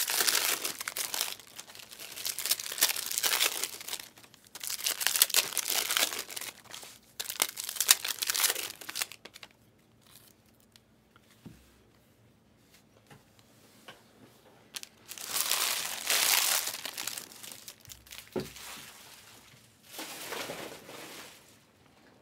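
Trading-card pack wrappers being torn open and crumpled by hand: dense crinkling and tearing for the first nine seconds or so, a quieter lull, then two more bursts of crinkling later on.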